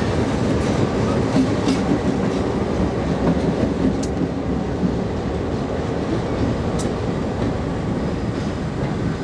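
A loaded stone train of freight hopper cars rolling along the track, giving a steady, unbroken rolling noise of wheels on rails.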